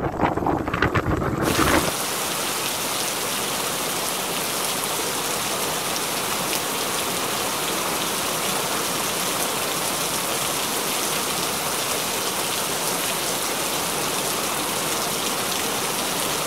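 Gusty wind buffeting the microphone, then an abrupt switch about two seconds in to the steady, even hiss of heavy rain pouring down.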